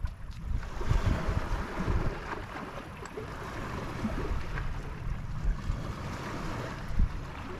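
Wind buffeting the microphone in uneven gusts over a steady wash of small lake waves.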